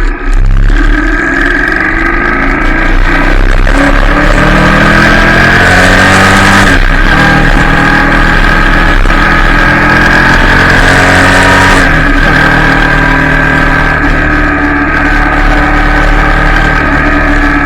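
Royal Enfield Shotgun 650's parallel-twin engine and exhaust under way, accelerating through the gears: the pitch climbs, drops at gear changes about 7 and 12 seconds in, then holds steady.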